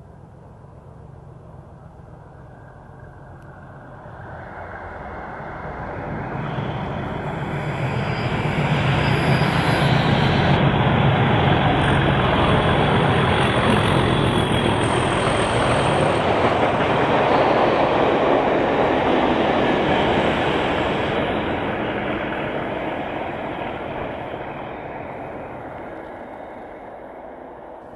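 Diesel-hauled Network Rail test train, class 97/3 and class 31 locomotives with yellow test coaches, passing through the station at speed. Engine and wheels on rail build up, stay loud for about twelve seconds, then fade away.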